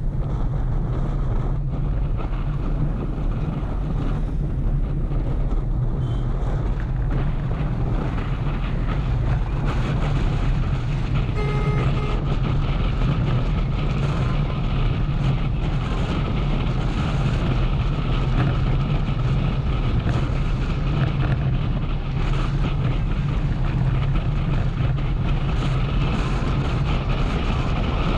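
Motorcycle engine running steadily at cruising speed, with road and wind noise on a helmet- or bike-mounted action camera. A short horn beep sounds about halfway through.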